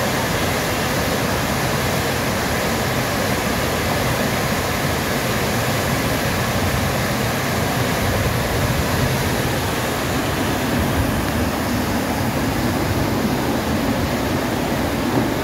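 Muddy floodwater rushing down a concrete channel and pouring over a ledge: a loud, steady rush of water.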